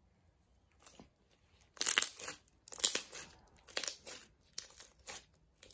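Clear slime being squeezed and stretched by hand, giving crackly squelches about once a second, starting after a quiet second or so.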